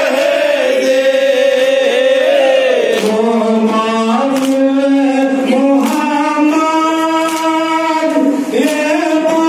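Male voices chanting a noha, the Shia mourning lament, in unison behind a lead reciter on a microphone, holding long, slowly shifting notes. Sharp slaps recur about once a second, the hand-beating on the chest (matam) that keeps time with the lament.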